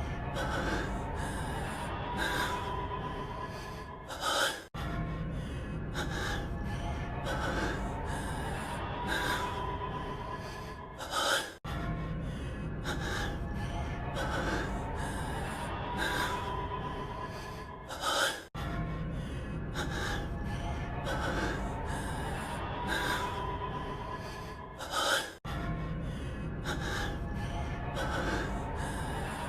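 A male anime voice breathing heavily and gasping, in a clip of about seven seconds that loops over and over. Each pass ends in a sharp, loud gasp and a brief break before the next repeat.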